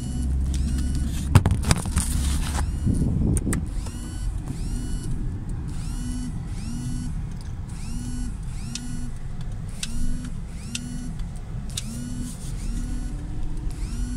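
Car interior noise while driving: a steady low engine and road rumble, with a short rising electronic tone repeating about once a second. A few sharp clicks and a brief louder rustle come in the first few seconds.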